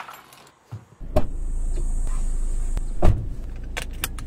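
A bunch of keys jingling as they are lifted off a hook, then a steady low rumble inside a car, a single loud knock about three seconds in and a few sharp clicks near the end as a seatbelt is pulled across and buckled.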